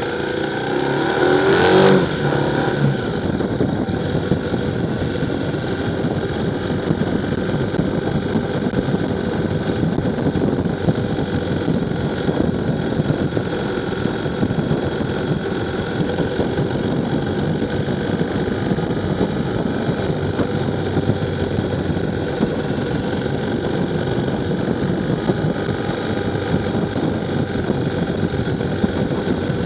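A vehicle's engine running steadily under way, mixed with wind and road noise, with a brief louder swell about two seconds in.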